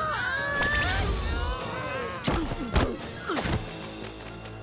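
Cartoon soundtrack: music with swooping, gliding sound effects, then three sharp impact hits with falling sweeps a little past halfway. The hits are heavy thuds and a crack, the effects for a body hitting the ground and a medal breaking.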